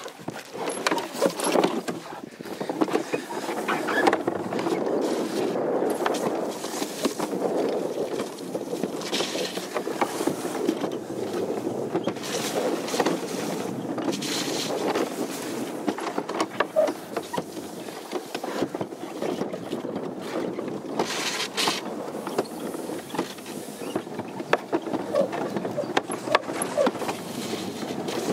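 Plastic summer toboggan sled running down a trough-style track: a continuous rolling rumble with scattered knocks and clatters as the sled bumps along the channel.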